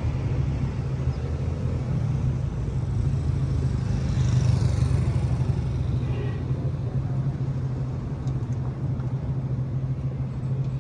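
Street traffic with a steady low engine rumble, swelling slightly about four seconds in.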